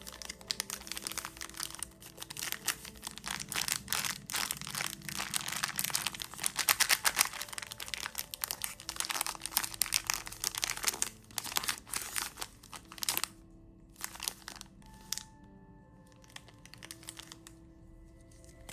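Plastic candy wrapper crinkling and tearing as it is unwrapped by hand, in dense crackling handling that thins out to a few isolated crinkles near the end. Soft background music with steady tones plays underneath.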